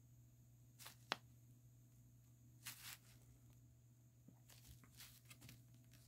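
Faint paper handling: a folded instruction leaflet rustling and crinkling as it is held and moved, with a sharp crinkle about a second in, a short rustle near three seconds and a few soft crinkles near the end.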